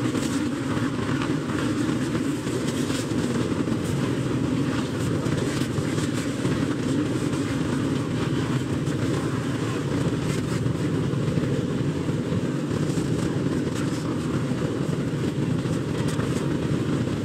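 Steady engine rumble of motor vehicles running, even in level with no clear revving.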